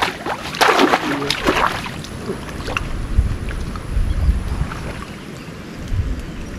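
Water splashing and sloshing during the first two seconds, then low wind rumble on the microphone from about three seconds in.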